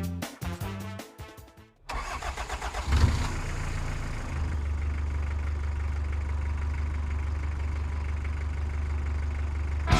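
A truck engine starting about two seconds in, revving briefly, then idling steadily. A few notes of music come before it.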